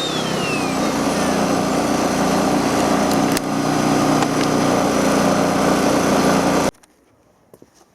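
Hyundai EFI2500SEI inverter generator's small petrol engine running steadily, close up. A thin high whine falls away in the first second, and there is a single sharp click about halfway through. The engine sound cuts off suddenly near the end.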